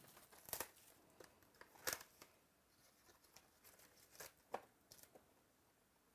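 Faint tearing and crinkling of a trading-card box's packaging being opened: a few short, sharp rips and crackles, the loudest about half a second and two seconds in.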